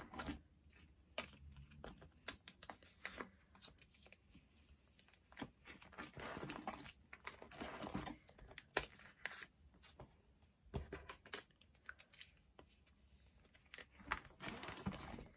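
Photocards and plastic binder pages being handled as cards are slid into the pockets: faint crinkling and rustling of plastic with scattered light clicks.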